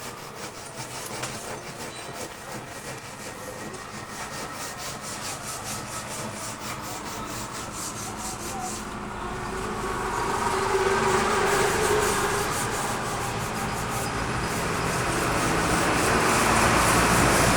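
Wood being rubbed by hand in rapid, rhythmic strokes, typical of sanding. It gets louder about ten seconds in.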